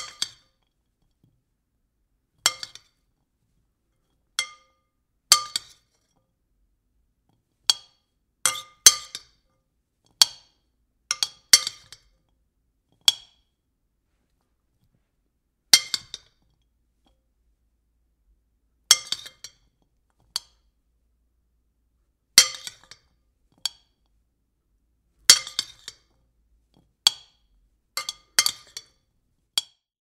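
A spoon tapping against a bowl: sharp clinks that each ring briefly at the same few pitches, struck singly and in quick clusters of two or three at irregular intervals.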